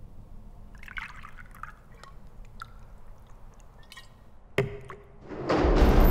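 Foley of small liquid sounds: scattered drips and light clicks. A sharp knock comes about four and a half seconds in, and a loud rush of dense noise starts near the end.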